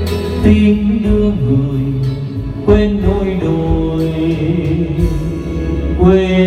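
Karaoke backing music from a Vietnamese ballad playing through a home karaoke loudspeaker system: held melodic notes that step from one pitch to the next over a steady bass line.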